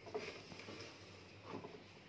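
Faint rubbing of a cloth wiping the inside of a top-load washing machine's tub, with a soft scuff near the start and another about a second and a half in.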